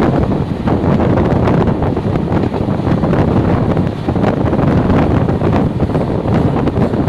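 Steady loud rumble of a moving passenger train, with wind buffeting the microphone.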